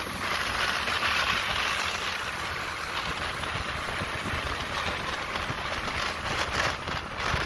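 Steady running noise of a motorbike under way: its engine and tyre rumble mixed with an even rush of wind.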